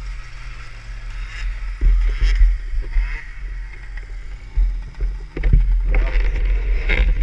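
Wind buffeting the action camera's microphone, a heavy uneven rumble, with knocks and rustles from the camera being moved about.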